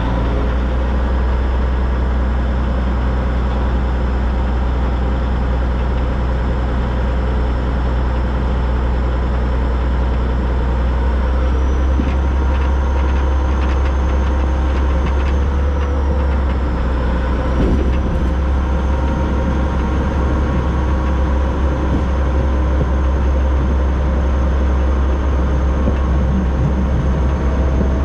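Steady rumble of a narrow-gauge steam train running along the track, with a few short clicks about halfway through.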